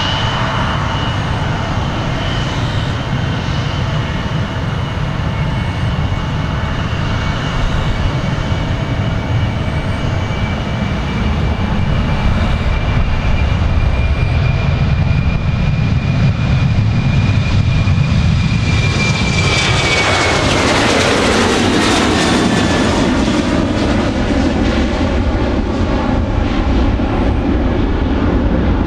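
Boeing 737-800's CFM56-7B turbofans at takeoff thrust on the takeoff roll: a steady high whine over a low rumble, the whine dropping in pitch as the jet passes about twenty seconds in, then a broader, louder roar as it lifts off and climbs away.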